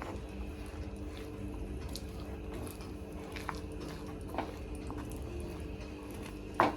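A spoon stirring roasted gram, peanuts and sesame through sticky jaggery syrup in a kadai: soft wet squelches with scattered light scrapes and clicks, over a steady low hum.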